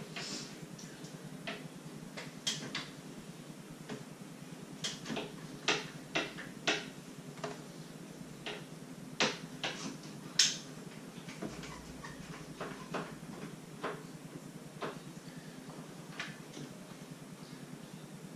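Scattered light knocks and clicks of a level and small parts being handled and set down on an MDF board, irregularly spaced. The sharpest click comes about ten seconds in.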